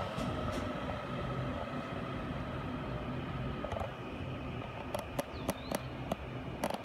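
Taiwan Railways EMU800 electric commuter train pulling away: a steady low rumble of its running gear, with its motor whine fading in the first second. Several sharp clicks come in the last two seconds.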